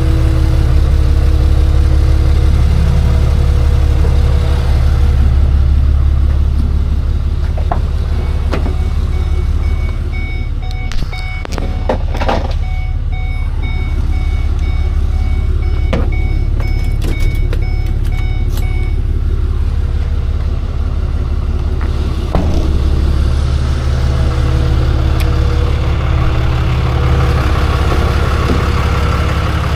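Tow truck engine idling steadily, with an evenly repeating electronic beep for about ten seconds in the middle and a few sharp knocks around then.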